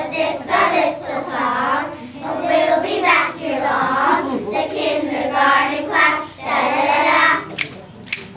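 A group of kindergarten children singing a song together, in phrases of about a second each. A few sharp claps come near the end.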